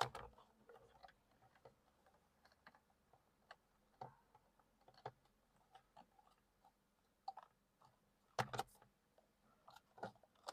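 Scattered small clicks and knocks of plastic parts being handled as a driver's airbag module is fitted into a steering wheel, with a louder cluster of knocks about eight and a half seconds in.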